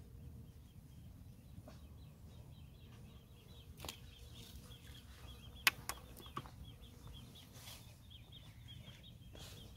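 Quiet open-air ambience with small birds chirping faintly, broken by a few sharp clicks of fishing tackle handling as the angler works his float rod and reel; the loudest click comes about six seconds in.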